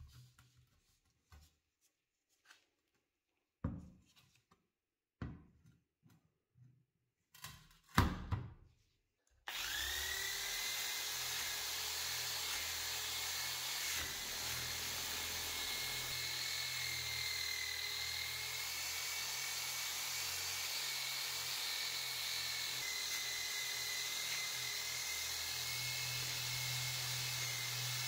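A few scattered knocks as the bread-slicer blade is set down and clamped, then about nine seconds in a power sander starts and runs steadily with a high whine, rough-sanding the rusty blade.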